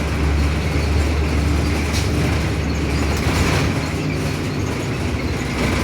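2015 Blue Bird Vision school bus engine running, heard from inside the bus: a steady low hum with even background noise and a single faint click about two seconds in.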